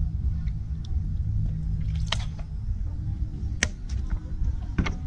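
A few sharp clicks and taps as a bottle, a spoon and a seasoning shaker are handled over a wooden mortar, three in all: about two seconds in, past halfway and near the end. A steady low rumble lies under them.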